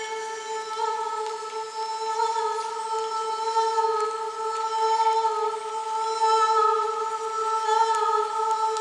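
A woman's voice humming long, held notes over a steady, gently pulsing ringing drone.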